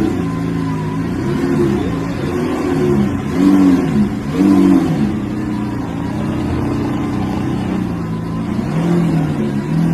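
Lamborghini Aventador's V12 engine being revved in several quick blips, its pitch rising and falling, then holding steadier before rising again near the end.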